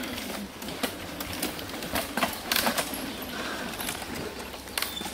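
Mountain bikes passing on a rough dirt trail: irregular clicks and rattles from the bikes, with a cluster of louder knocks about two and a half seconds in.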